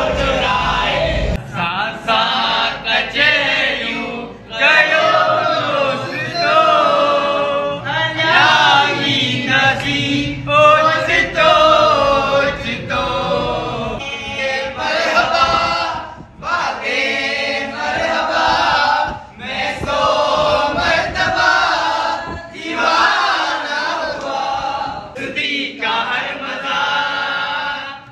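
A group of young men singing a song together in chorus, phrase by phrase with short breaks between lines.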